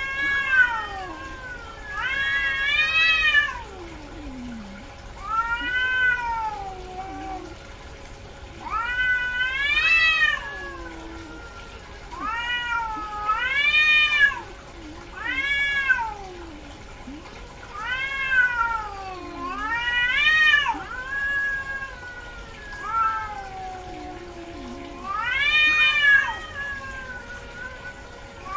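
Female cat in heat meowing over and over: about a dozen drawn-out calls that each rise and fall in pitch, every two to three seconds, typical of a queen calling during oestrus.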